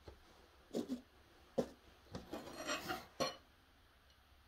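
Handling sounds of a steel knife tang and wooden handle scales being fitted together: a few short knocks, with a scraping rub of wood and metal a little after the middle.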